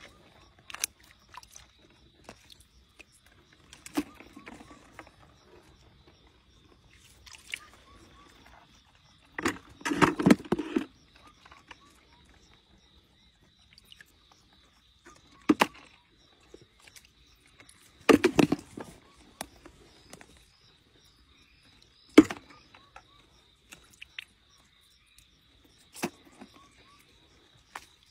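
Long metal grabbing tongs clicking and knocking and splashing in shallow muddy water as crayfish are picked out, in separate sharp clicks with two longer splashy bursts about ten and eighteen seconds in. A steady high insect drone sounds underneath.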